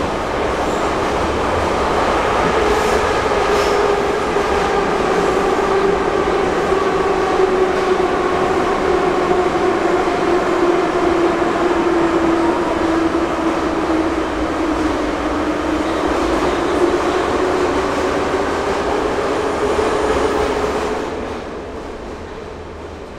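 Metro train running at speed, heard from inside the carriage: a loud, steady rumble of wheels on rails with a whine from the motors that sags slowly in pitch and then climbs again. About 21 seconds in, the noise drops sharply as the train slows.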